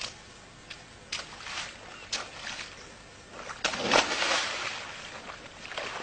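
A child flopping into a shallow muddy puddle: a loud splash about three and a half seconds in, followed by sloshing of the muddy water. A few sharp clicks come before it.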